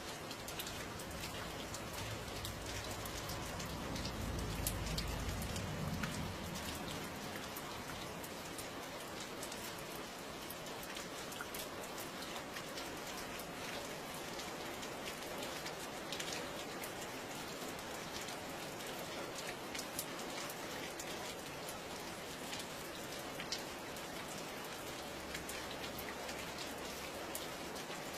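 Steady rain falling on a surface, with scattered single drops ticking through it. A low rumble swells and fades a few seconds in.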